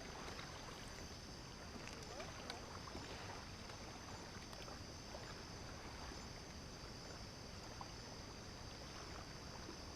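Faint, steady ambience at the water's edge at night: a low wash of water against the shore under a constant high-pitched chirr, with a few faint ticks.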